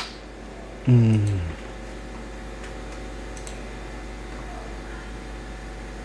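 A short, low voiced sound from a man, falling in pitch, about a second in, over a steady low electrical hum, with a few faint ticks later on.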